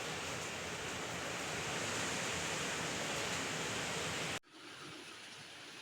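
Heavy rain falling as a steady hiss. About four seconds in it cuts off abruptly to a much fainter rain sound.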